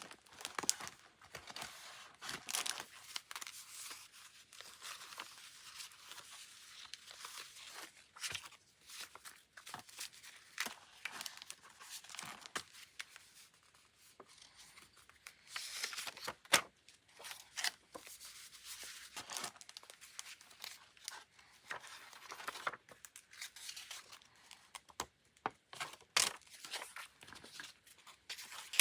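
Paper and stationery being handled for journal decorating: rustling, crinkling and tearing of paper, stickers or tape, with many scattered sharp taps and clicks.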